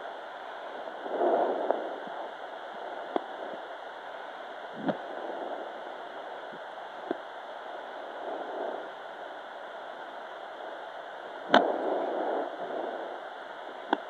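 Handheld fetal Doppler's speaker giving a steady hiss, with a few irregular swells of whooshing and several sharp clicks as the probe searches. No fetal heartbeat is picked up.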